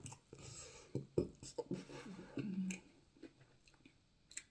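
Close-miked chewing and mouth noises: scattered soft smacks and clicks, thinning out in the last second or so.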